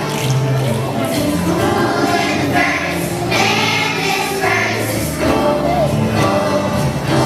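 A choir of young voices singing a song with musical accompaniment, performed live.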